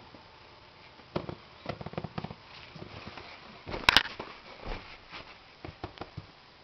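Light scattered taps and scuffles of a cat moving about on the floor while playing with a sock, with a pair of sharp clicks about four seconds in.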